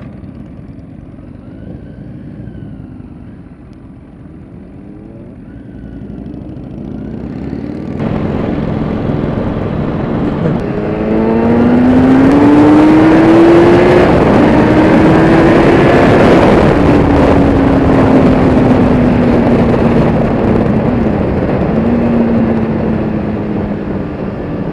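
Sport bike engine heard from the rider's helmet: after a quieter start, loud wind rush builds and the revs climb in steps through gear changes, then fall away as the bike eases off.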